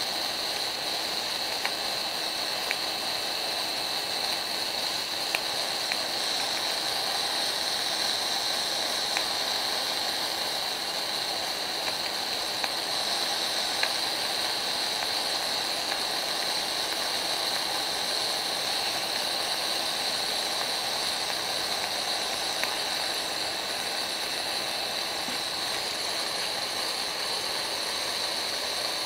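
Homemade 12-volt smoke generator running: its small pump motor gives a steady high whine over a hiss, with scattered faint ticks.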